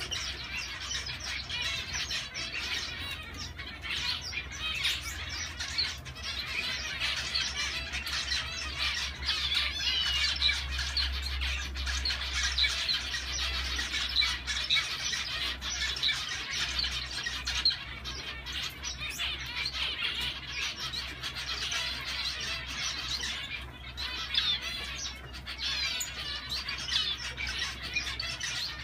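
Zebra finches chirping and calling without a break, many birds at once in a dense chatter, over a low steady hum.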